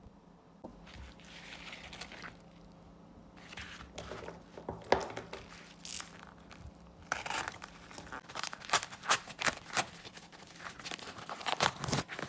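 Packaging being unwrapped by hand: crinkling and tearing in irregular crackles and sharp clicks, sparse at first and busier in the second half.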